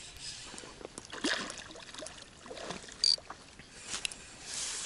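A hooked asp splashing at the surface of shallow water as it is played in, with a few separate splashes. A short sharp click comes just after three seconds in.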